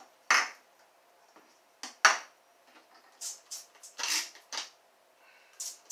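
Trigger spray bottle of bathroom cleaner spritzing in short hissing bursts, about seven in all at uneven intervals, a couple of them in quick succession.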